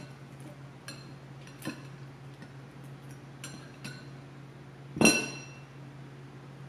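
A glass mixing bowl of egg wash clinking once with a brief ringing about five seconds in, with a few faint taps and clicks before it as chicken wings are dipped and turned in the bowl.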